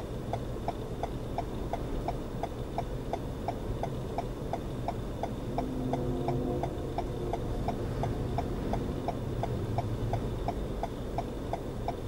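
A vehicle's hazard-light flasher ticking steadily, about three ticks a second, over a low steady engine hum heard from inside the cab.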